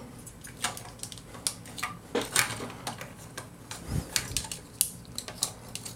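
Badcube OTS-14 SteamRoll plastic robot figure being handled and posed: irregular small clicks and taps of its plastic joints and parts, with a soft low knock about four seconds in.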